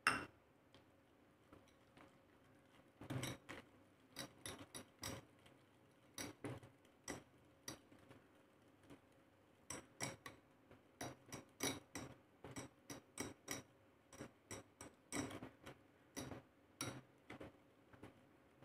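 Steel wire hand whisk clinking against a cut-glass bowl while stirring a thick batter: a sharp click right at the start, then light irregular clinks, about one or two a second, from about three seconds in.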